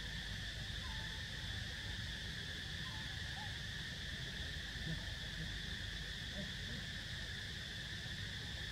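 Steady outdoor insect drone, an unbroken high hiss in two pitch bands, over a low rumble, with a few faint short chirps about a second in and again around three seconds in.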